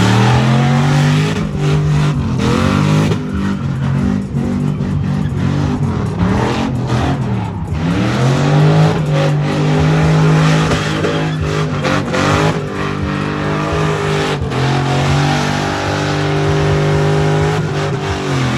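Car engine revving hard, its pitch dropping and climbing back up several times and held high in between, with tyres spinning and squealing under the power.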